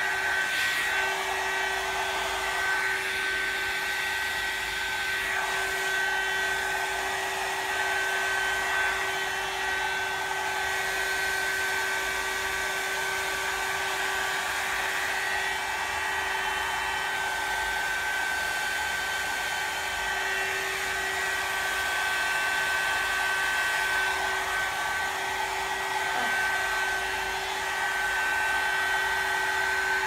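Hot-air curl brush dryer running steadily: a high motor whine over the rush of blowing air.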